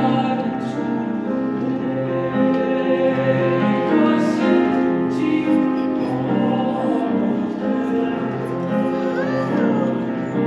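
A madrigal choir singing in harmony, holding long sustained chords, with the hiss of sung consonants coming through now and then.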